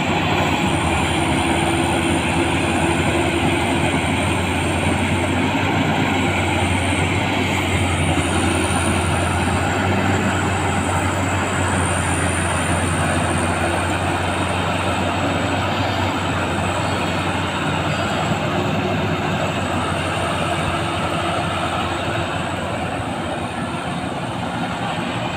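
Rice combine harvester running steadily: a low engine drone under dense mechanical noise, with a faint high whine that comes and goes.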